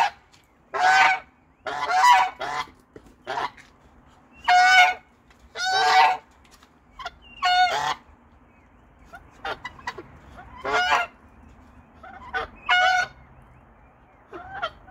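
Peafowl giving a series of loud, harsh honking calls, about one a second, turning shorter and fainter in the second half.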